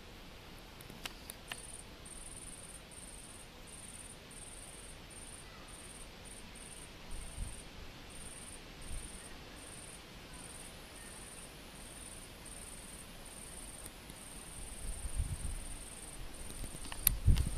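An insect chirping in a steady series of short, very high-pitched pulses, about one and a half a second, that run together into an unbroken buzz near the end. Low rumbles and a couple of sharp clicks come in over it near the end.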